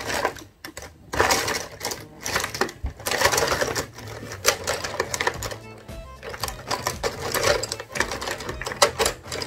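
Felt-tip markers rattling and clicking against each other in a plastic tub as a hand rummages through them, in irregular clattery bursts, over quiet background music.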